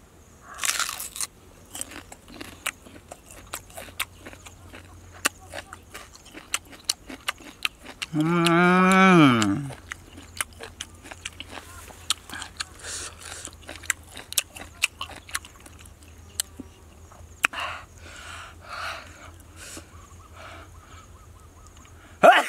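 Crunchy biting and chewing of a firm raw green fruit eaten with chili sauce: many sharp crunches and mouth clicks. About eight seconds in comes one loud, drawn-out vocal exclamation from the eater that drops in pitch at the end.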